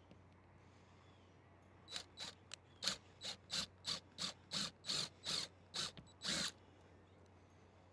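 A cordless drill run in about a dozen short trigger bursts, roughly three a second, boring a shallow pilot hole into an RV roof. The hole is pre-drilled for a self-tapping roofing screw, with the bit's depth limited by a tape marker.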